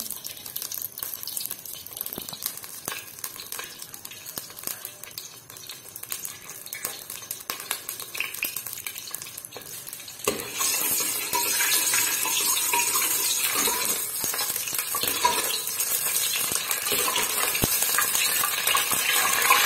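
Green cardamom pods crackling and sizzling in hot oil in a steel pot, stirred with a steel ladle. The sizzle gets suddenly louder about halfway through and stays loud.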